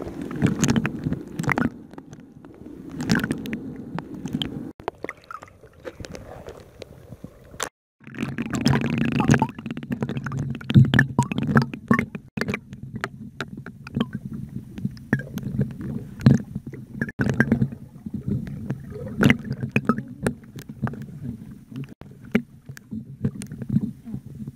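Water sloshing and lapping right at a phone's microphone from a kayak, heard as an uneven muffled rumble with many small knocks and splashy clicks. It breaks off for an instant just before eight seconds in.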